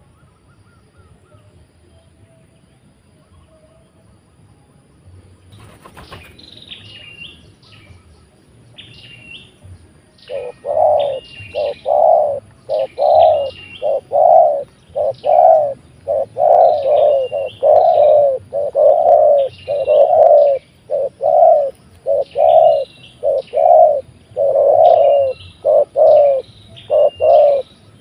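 Spotted doves cooing loudly and repeatedly, a run of about twenty deep coo notes starting about ten seconds in, with higher chirps over them. This is territorial cooing between a trained decoy spotted dove and a wild one that has come down to it. There is a brief rustle about six seconds in.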